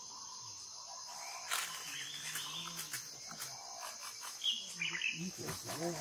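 Steady high-pitched drone of forest insects, with a few short chirps around the middle and a low human voice murmuring near the end.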